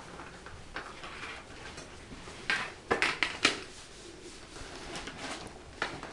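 Puppies scuffling over a fabric frisbee on a tile floor: scattered scrapes and short knocks, with a few louder ones about two and a half to three and a half seconds in and again near the end.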